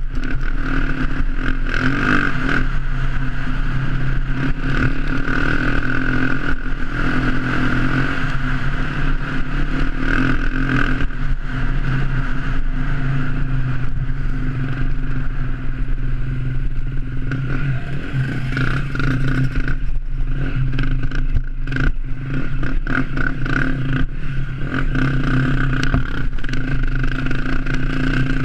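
Enduro dirt bike engine running under way, its revs rising and falling with the throttle.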